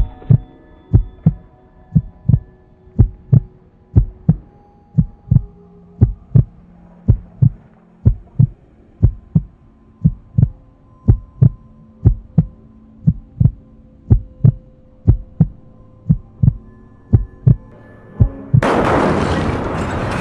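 Heartbeat sound effect: double thumps about once a second, with faint sustained tones under them. About 18.5 s in, a loud rushing noise suddenly cuts in and holds.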